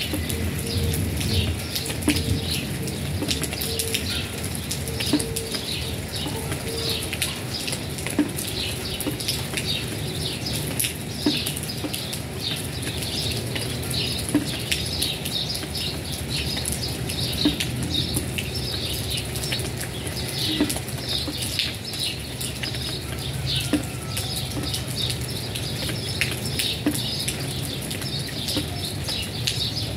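Steady rain pattering on wet concrete, a dense run of fine drop ticks with an occasional louder drip.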